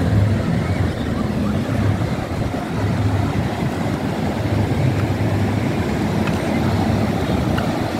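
Sea wind buffeting the phone's microphone in a steady low rumble that surges now and then, with ocean surf breaking underneath.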